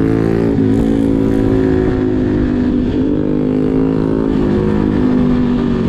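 Motorcycle engine running steadily at cruising speed, heard from the saddle with wind and road rumble. The engine note dips briefly a few times as the throttle eases and picks up again.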